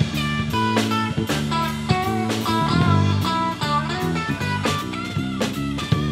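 Live electric band playing an upbeat twist-rhythm song: picked electric guitar melody over bass guitar and a drum kit keeping a steady beat.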